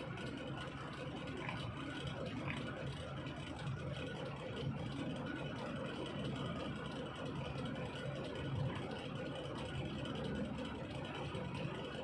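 Heavy diesel engine idling steadily, a low, even hum.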